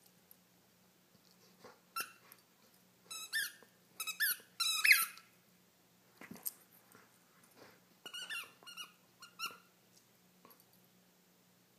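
A dog's squeaky toy squeaked repeatedly as the dog bites and chews it, in short clusters of squeaks with pauses between. The loudest cluster comes about five seconds in, and quieter squeaks follow.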